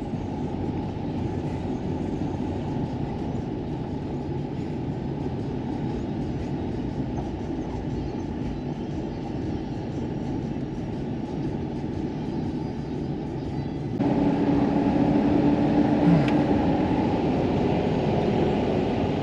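Steady road and engine noise of a moving truck, heard from inside the cab. About 14 seconds in it jumps abruptly louder, and a steady hum joins it.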